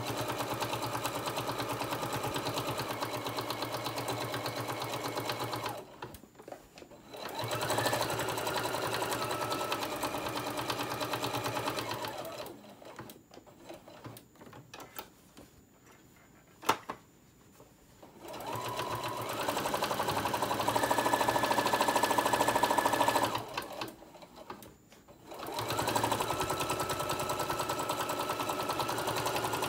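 Singer Modern Quilter electric sewing machine stitching through layers of fabric and batting. It runs in four stretches with short stops between them, and its motor speeds up as it starts again. In the longest stop there is a single sharp click.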